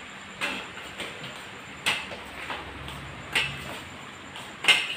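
Stick props used as crutches tapping down on a hard floor as a person walks with them: four sharp knocks about a second and a half apart, the last the loudest.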